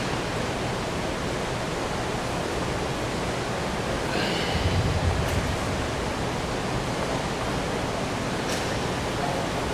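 Steady, even hiss of background noise, with one brief faint sound about four seconds in.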